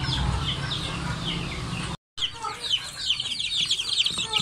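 Adult chickens making short calls for about two seconds, then, after a cut, a box of young chicks peeping: many rapid, high-pitched peeps overlapping continuously as feed is scattered among them.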